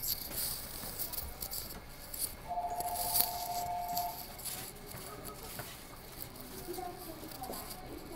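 Station platform ambience heard from a train standing at the platform: faint voices and footsteps with short swells of hiss. About two and a half seconds in, a steady electronic tone of two notes sounding together lasts about a second and a half.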